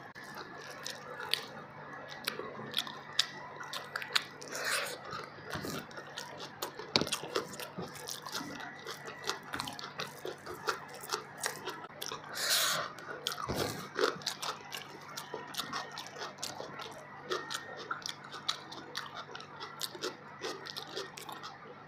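A person chewing mouthfuls of fish biryani eaten by hand, with a dense run of small mouth clicks. A brief louder burst of noise comes about halfway through.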